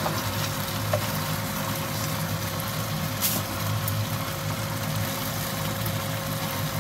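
Mirin-marinated silver flounder fillets sizzling in a frying pan over a steady low hum, with a small click of the tongs about a second in and a short crackle a little after three seconds.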